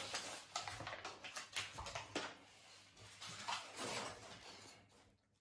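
Aluminium foil burger wrapper crinkling and rustling in irregular scratchy bursts as a beagle puppy noses and licks crumbs off it, fading out near the end.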